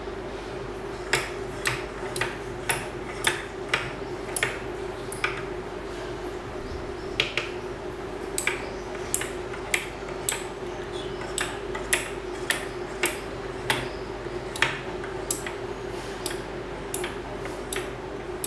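Relays on the DMX512-controlled 8-channel relay boards clicking on and off as the controller's channel faders are moved past the switching point: sharp single clicks at uneven intervals, one or two a second, over a steady hum.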